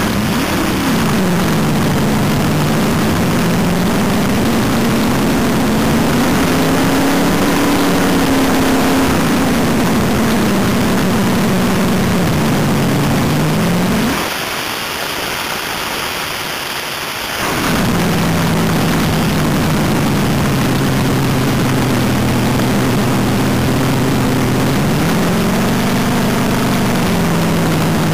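Dragster engine with open exhaust headers running at the line, its revs drifting slowly up and down. Near the middle the engine sound drops away for about three seconds, leaving a hiss, then comes back.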